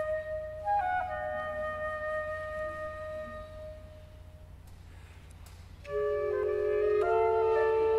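Solo flute playing a slow phrase that ends on a long held note and fades away; after a short pause, about six seconds in, clarinet and bass clarinet come in with the flute in soft sustained chords.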